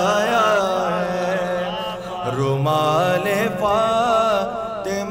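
A reciter singing a line of an Urdu devotional manqabat, drawing a word out into a long, wavering melodic run.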